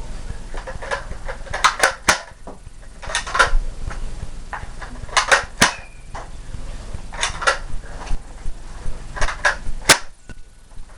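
Nerf dart blasters being primed and fired: sharp plastic clicks and snaps that come in pairs or short clusters about every two seconds.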